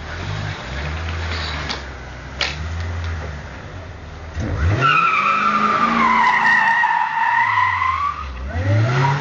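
Mercedes-Benz CLK DTM AMG's supercharged V8 running low, then revving up about four seconds in as the rear tyres break loose. A loud, wavering tyre squeal follows for about three seconds, and the engine revs up again near the end.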